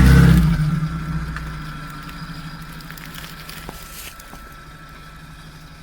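An off-road vehicle's engine runs loudly under throttle, then eases off and fades over about two seconds to a quiet, steady low running sound.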